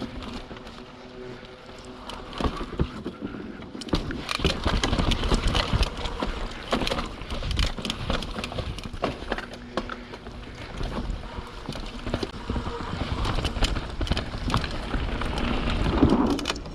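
A YT Capra 29 mountain bike rolling fast down a rough dirt and rock trail: tyre noise with a constant clatter of sharp knocks and rattles from the bike, and wind on the microphone. It gets louder about four seconds in.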